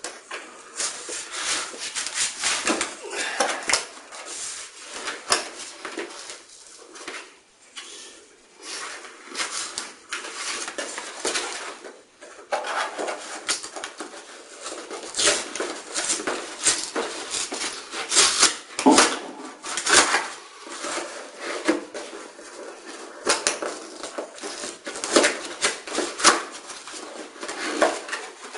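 Corrugated cardboard box being slit open with a utility knife and its end flaps pulled and torn open: irregular scraping, ripping and rustling of cardboard.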